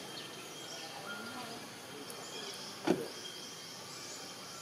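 Quiet outdoor background noise with faint chirps and a thin steady high tone, broken by a single short thump about three seconds in.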